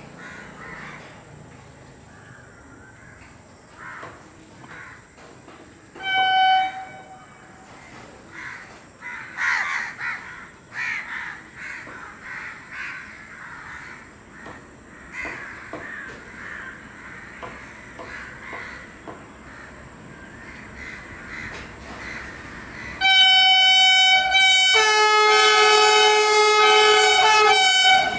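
Crows cawing repeatedly while a Vande Bharat Express train approaches. The train gives a short horn blast about six seconds in, then a long, loud chord-like horn near the end, with a lower tone joining partway through.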